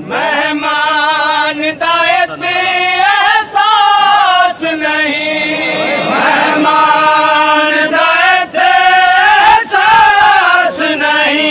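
Chanted singing of a Saraiki noha, a mourning lament, in long wavering held notes.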